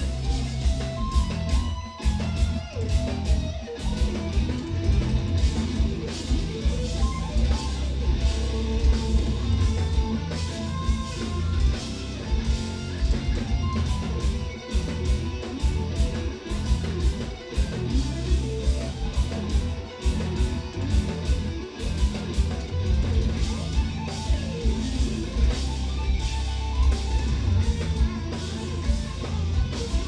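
Live instrumental progressive metal: two electric guitars and a drum kit playing loud, dense riffs with constant drum hits and heavy low end.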